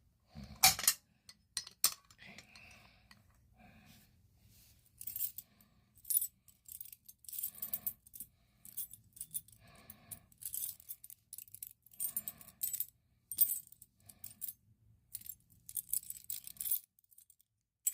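A bunch of small metal keys jangling and clinking in short, irregular clusters as they are sorted through, after one sharp snap about a second in.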